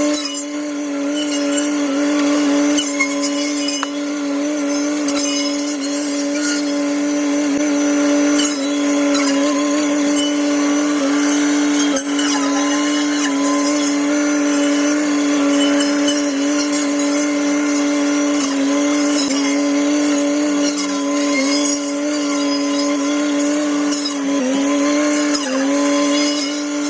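Tractor-mounted hedgecutter saw blade running with the tractor's engine, played back sped up so it sounds high-pitched. It holds one steady pitch and sags briefly twice near the end as the blade bites into wood.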